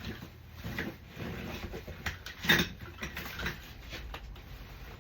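Handling noise from a Graco Pack 'n Play playard being folded down: scattered knocks and rustles of its frame and fabric, with a louder clunk about two and a half seconds in.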